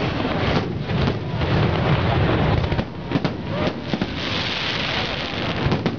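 Aerial fireworks salute: a continuous barrage of shell bursts and bangs, with dense crackling from about four seconds in.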